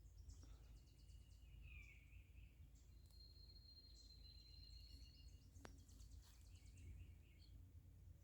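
Near silence with faint distant bird calls: a few short chirps and one thin, high whistle held for about two seconds in the middle, over a low steady rumble.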